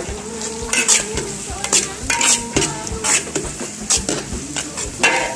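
Metal wok spatula scraping and turning scrambled egg and greens around a large steel wok, over a steady sizzle of frying. The scrapes come in sharp strokes about once a second.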